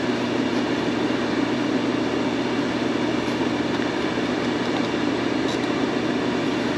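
Air fryer running with its fan making a steady whir and a low hum while it cooks a pork loin.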